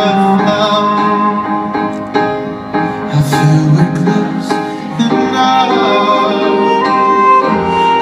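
Live concert music played through an arena sound system: a band with bowed strings behind a male singer, recorded from within the audience.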